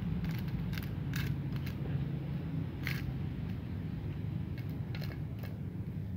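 Kittens chewing and smacking as they eat cooked rice from a metal tray: irregular short wet clicks, about one or two a second, over a steady low rumble.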